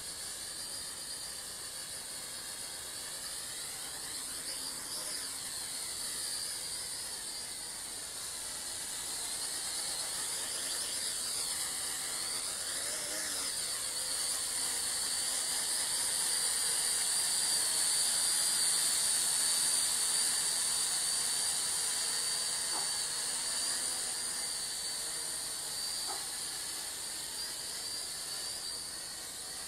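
FQ777 Mantis toy quadcopter flying low, its small motors and propellers making a high-pitched whine that rises and falls in pitch as the throttle changes. The whine swells louder about two-thirds of the way through and eases off again.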